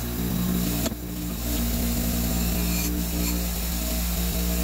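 Bench grinder running with its wire wheel scrubbing rust off the forged steel head of an antique ice axe: a steady motor hum under a dense, hissing scrape of wire on metal. The scraping dips briefly about a second in and again near three seconds as the work shifts on the wheel.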